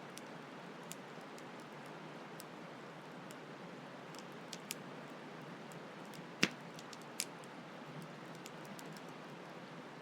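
Wood campfire crackling, with scattered sharp pops, the loudest about six and a half seconds in and another soon after, over a steady hiss of flowing stream water.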